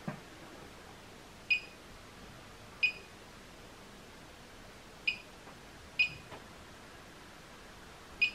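FeelTech function generator's keypad beeping as its buttons are pressed: five short, high beeps at uneven intervals, with a light knock at the start.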